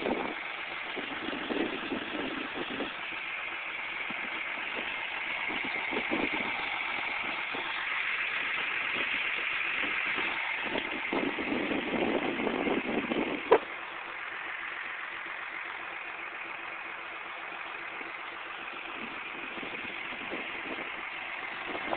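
John Deere 8420T track tractor's diesel engine idling steadily, with a single sharp click about thirteen seconds in.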